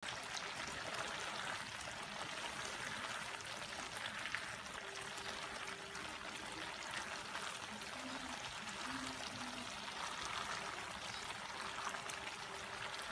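Coconut milk boiling hard in a pan, a steady bubbling with many small crackling pops, as it is cooked down to render coconut oil and latik.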